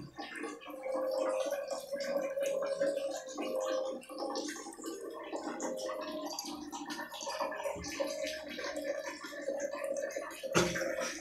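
Water running into a plastic tub and spilling over onto a tiled floor, a steady gurgling with fine splashing. A single sharp knock near the end.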